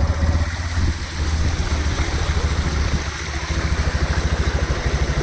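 Motorcycle engine running with a rapid steady pulse while riding through floodwater, with water splashing and rushing around it.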